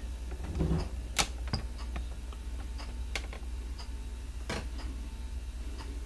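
Room tone: a steady low hum with a brief soft sound a little over half a second in and a few scattered sharp light clicks, the strongest about a second in.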